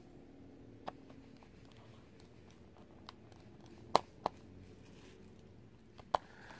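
Small screws and a small Phillips screwdriver clicking against the phone's frame as the screws are put back in by hand: about five light, sharp clicks, the loudest a pair about four seconds in.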